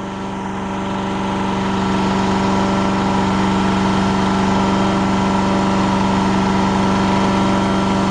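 Amtex Marine 4047 APO unit's engine running at a steady speed with an even hum, heard from about fifty feet away. It grows slightly louder over the first two seconds, then holds.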